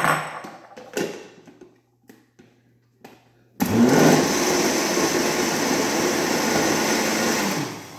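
A few knocks, then a countertop blender switched on about halfway through, running steadily for about four seconds as it grinds lulo and passion-fruit pulp with milk, and winding down near the end.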